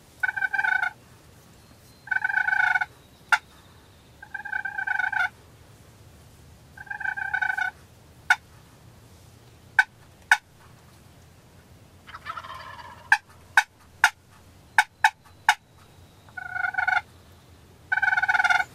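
Wild turkey toms gobbling repeatedly, about six rattling gobbles a few seconds apart. A run of sharp clicks comes in the middle, along with a softer, rougher call about twelve seconds in.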